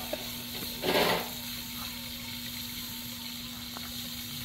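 Campfire burning with a few faint crackles over a steady low hum, and one short whooshing noise about a second in.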